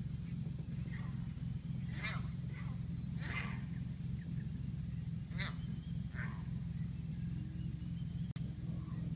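A series of short wild animal calls, about seven, each falling in pitch, with a few seconds' gap in the middle. A steady low hum runs beneath them.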